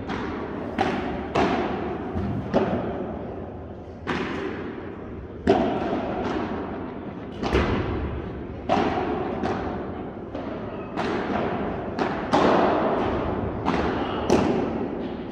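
Padel balls being struck and bouncing: a sharp knock about once a second at uneven spacing, each ringing on in the echo of the large hall.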